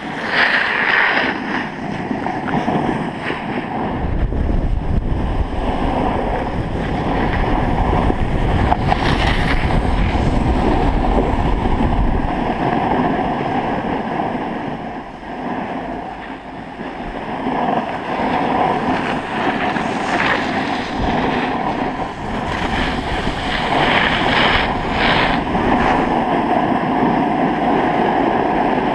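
Wind rushing over a GoPro Hero3's microphone as the camera slides downhill, with the steady hiss and scrape of sliding over packed snow; heavy low buffeting from about four to twelve seconds in.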